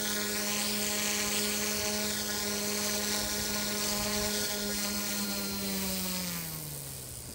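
OMP Hobby M1 mini RC helicopter's direct-drive brushless motors and rotor whining at a steady pitch as it sits landed, then spooling down with a falling pitch from about six seconds in.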